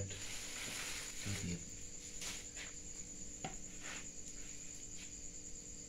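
Crickets trilling steadily at one high pitch, with a few faint clicks and a brief low voice sound about a second in.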